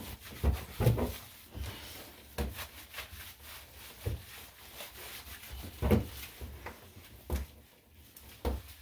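Hands scrubbing shampoo lather into a wet dog's coat: wet rubbing and squishing, broken by irregular soft thumps.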